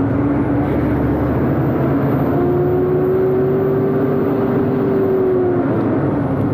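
Ten-wheel diesel truck on the move, heard from inside the cab: steady engine and road noise. The engine hum rises a little about two seconds in and drops back near the end.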